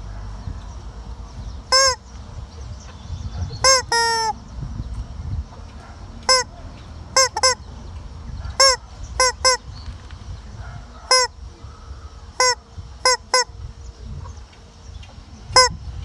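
A hen giving short, loud squawks, about fourteen of them, several in quick pairs. About four seconds in, one call is longer and falls in pitch at the end.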